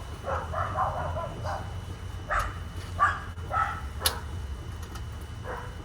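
A dog barking repeatedly in short bursts, with a sharp click about four seconds in.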